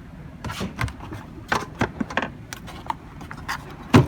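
Scattered clicks and knocks as a Kärcher wet-and-dry vacuum cleaner is handled and opened to get at its filter.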